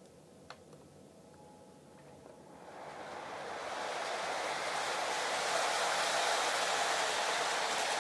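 Lionel model train running on the three-rail track, a rushing rolling noise that swells over about two seconds as it comes near and then holds steady. A small click sounds about half a second in.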